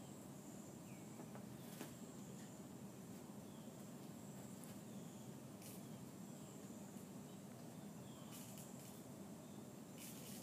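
Near silence: faint background hiss with a thin, steady high tone, a few soft clicks and some faint short chirps.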